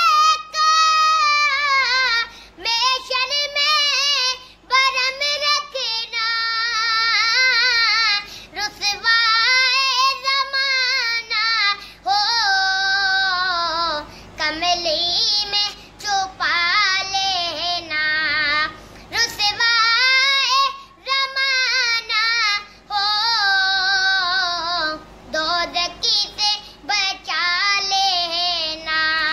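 A high solo voice, a child's or young woman's, singing a slow, ornamented devotional song in long phrases with short breaths between them, without instruments.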